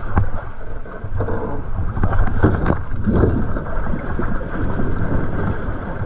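Wind buffeting the microphone and water rushing and splashing along a sailing catamaran's hull as it sails hard, with a few louder knocks and splashes about halfway through.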